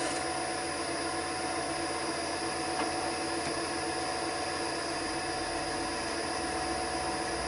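Wood lathe running steadily at speed, a constant motor hum and whir with no tool cutting.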